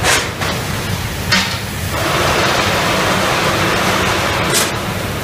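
Automatic vertical form-fill-seal bagging machine for 25 kg bags running amid factory din, a steady rushing noise. Short hisses come at the start, just over a second in, and near the end.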